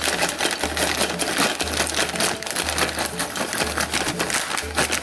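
Whole cashews poured from a plastic bag into a glass jar: a dense, rapid rattle of nuts clicking against the glass and each other. Background music with a steady bass line plays underneath.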